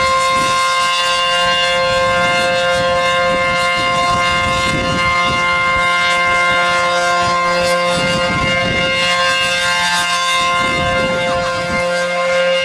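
ACA P-15 outdoor warning siren sounding a steady alert tone at full pitch, one unwavering multi-note howl. Wind rumbles on the microphone underneath.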